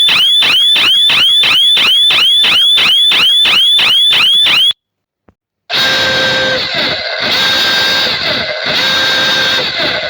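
Electronic siren in a fast yelp, about four rising whoops a second, that cuts off abruptly about halfway through. After a second of silence a different siren starts, a steady, harsher tone broken by short dips about every second and a half.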